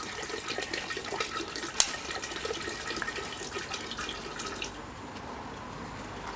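Water poured from two plastic bottles splashing into water pooled on top of sand, stopping about four and a half seconds in, after which only a faint hiss remains. A single sharp click about two seconds in.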